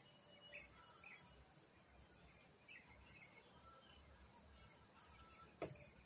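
Steady, high-pitched chorus of insects, typical of crickets, with a few faint short calls in the background.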